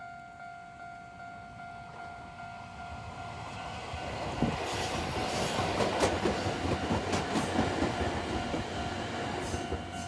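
Japanese level-crossing alarm dinging steadily, about two to three times a second. A Chichibu Railway electric train passes close by from about four seconds in, its wheels clacking rhythmically over the rail joints, loudest around the middle, then fading.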